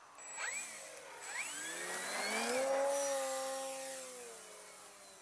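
Electric RC aerobatic plane's Power 25 brushless motor and propeller throttling up for takeoff: two quick rising whines, then a steady whine that is loudest about three seconds in and fades as the plane climbs away.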